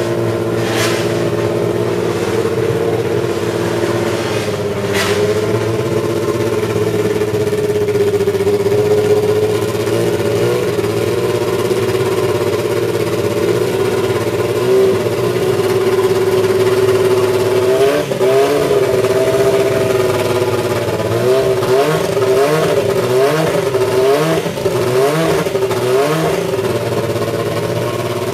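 Brabham BT52's BMW M12/13 1.5-litre turbocharged inline-four Formula 1 engine running at a steady idle. About two-thirds of the way through it is blipped once, then given a run of quick throttle blips, roughly one a second.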